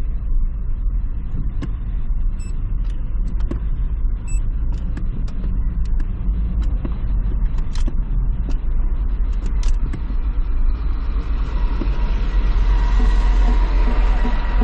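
Car driving slowly, heard from inside the cabin: a steady low rumble with scattered light clicks and ticks.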